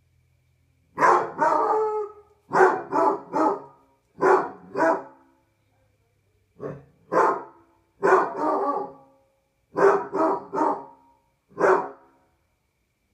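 Basset hound baying: about fourteen short, loud, barking howls in clusters of two or three, with brief pauses between.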